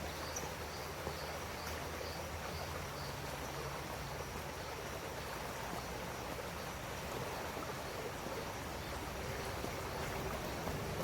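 A river's steady rush of flowing water, with faint high chirps repeating about three times a second during the first few seconds.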